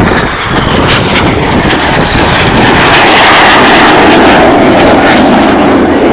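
Two BAE Hawk T1 jets making a low, close head-on pass: very loud jet engine noise that rises suddenly at the start and stays at full strength.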